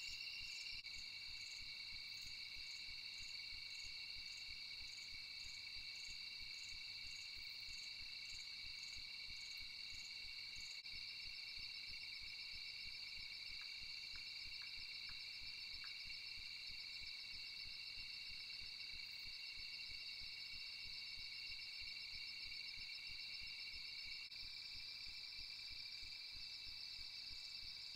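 Night chorus of insects, crickets among them, trilling steadily, with a second insect pulsing about three times every two seconds through the first ten seconds. The mix shifts slightly twice. No eruption blasts are heard.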